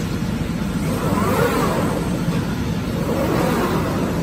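CNC glass cutting machine running, its drive motors whining as the gantry and cutting head travel over the glass, the pitch rising and falling with each move, over a steady low machine rumble.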